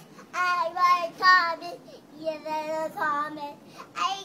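A toddler singing in a high voice, in short phrases with gaps and one longer wavering note near the middle.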